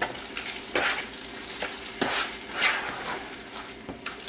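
Raw meatloaf mixture of ground meat, oats and cream being squished and mixed by hand in a bowl: wet squelching in uneven surges.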